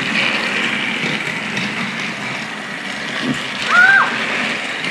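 Battery-powered Thomas & Friends Trackmaster toy trains running on plastic track with a steady whirring. About four seconds in, a short high call rises and falls.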